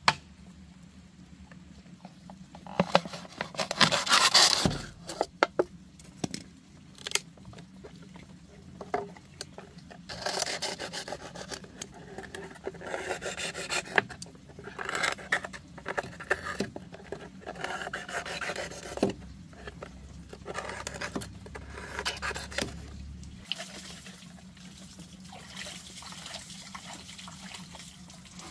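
A machete blade being sharpened by hand, rubbed again and again against a hard edge: rasping scrapes of metal in uneven runs of strokes.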